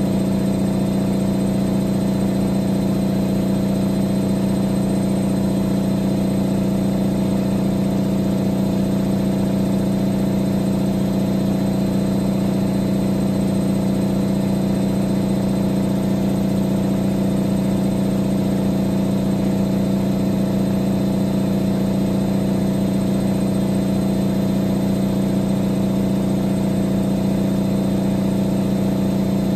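Siemens Siwamat XS 1060 front-loading washing machine running in the rinse stage of its boil-wash cycle, giving a steady, unbroken hum.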